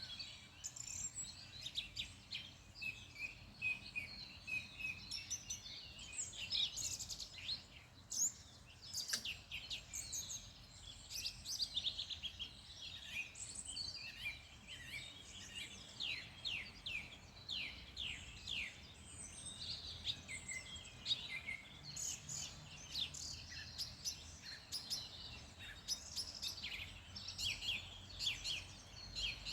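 Wild songbirds singing and calling together in a dense chorus of quick chirps and trills, with several birds overlapping throughout.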